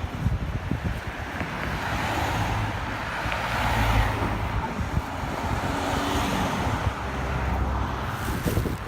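Road traffic: cars passing close by, their noise swelling to a peak about four seconds in and again around six seconds.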